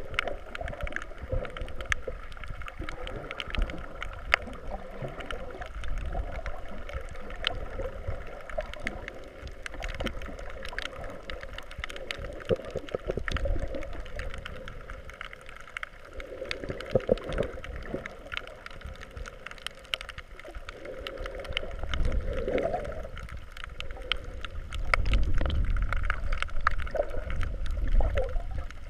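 Water heard underwater: a muffled low rumble of moving water with many small clicks and crackles, swelling louder twice in the second half.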